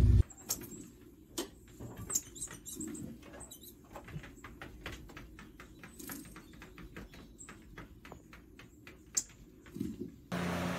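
Faint quick clicks and taps of a cat's claws and paws patting at a TV screen, irregular at first, then about three or four a second. Near the end a louder steady noise cuts in.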